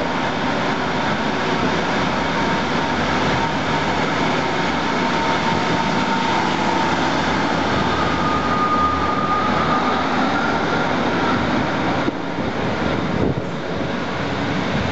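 Class 150 Sprinter diesel multiple unit running under power past the platform and away, with a faint whine that rises slightly about midway. The sound eases a little near the end as the train draws off.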